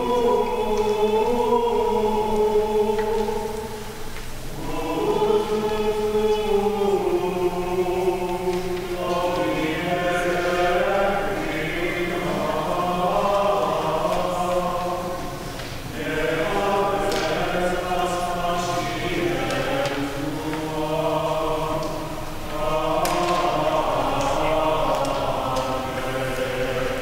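A choir singing in several phrases, with short breaks between them.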